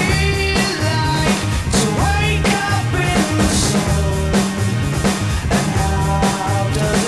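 Background rock music with drums, bass and a singing voice.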